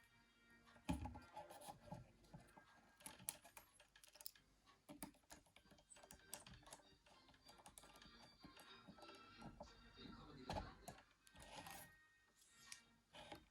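Faint, irregular small clicks and taps of a screwdriver, tweezers and plastic and metal parts on a Nokia 9300i housing as it is reassembled and screwed together, with a few duller knocks.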